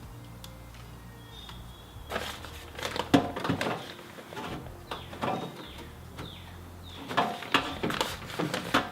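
Scattered clicks, knocks and rattles of objects being handled, in three bursts starting about two seconds in, over a low steady hum.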